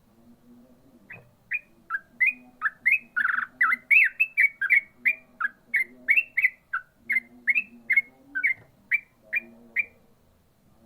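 Sooty-headed bulbul (trucukan) singing a fast run of short, clear whistled notes, about three a second, for some eight seconds before stopping: the rapid, unbroken 'ropel' delivery that bird keepers prize.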